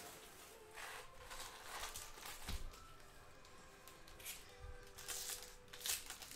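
Foil trading-card pack wrappers crinkling and rustling as they are handled and stacked, with a pack being torn open near the end; soft background music underneath.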